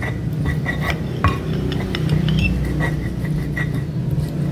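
A small kitchen knife slicing shallots on a ceramic plate: irregular sharp taps of the blade on the plate, each with a short clinking ring, over a steady low hum.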